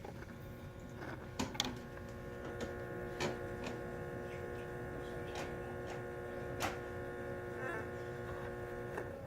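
Electrical interference buzzing from mains-powered PC speakers: a steady chord of several held tones with irregular sharp clicks. It is picked up by the speakers' own electronics after the amplifier, not the buzz of a GSM phone.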